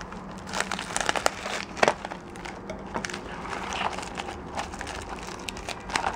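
Yellow padded mailer crinkling and crackling as hands pull and tear open its partly cut top, with irregular sharp crackles of paper and plastic.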